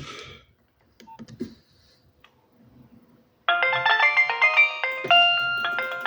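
A few sharp clicks, then about halfway in a Nokia 6030's polyphonic ringtone starts playing through the phone's small speaker, a quick, busy run of bright melodic notes.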